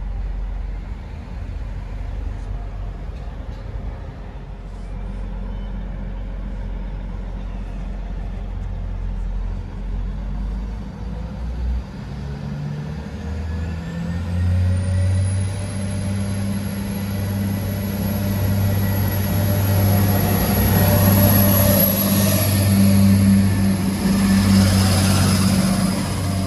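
Transport for Wales Class 175 diesel multiple unit running in on its Cummins diesel engines, the engine note growing louder as it draws alongside. A high whine rises in pitch about halfway through and then holds steady.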